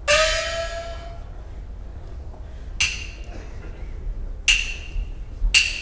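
Peking opera percussion: a small gong struck once, its tone gliding slightly upward as it rings out. About three seconds in come sharp, dry wooden percussion strokes, quickening toward the end.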